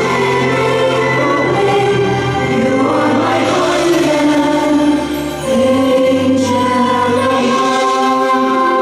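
Live stage singing by a boy and a girl joined by adult voices, in the manner of a choir, over sustained low backing notes that change pitch twice.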